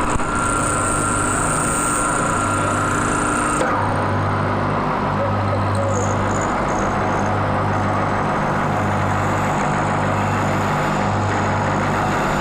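Lathe running steadily with a low hum. A high-pitched whine cuts off suddenly about three and a half seconds in, and the machine keeps running.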